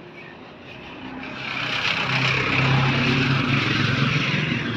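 Small motorcycle passing close by: its engine drone grows louder over the first two seconds, then holds strong until it eases a little near the end.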